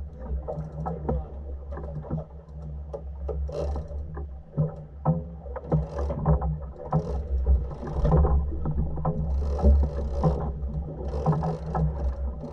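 A sportfishing boat's engine running steadily with a low drone. Short bursts of water splashing alongside the hull come every second or so, over scattered clicks and knocks.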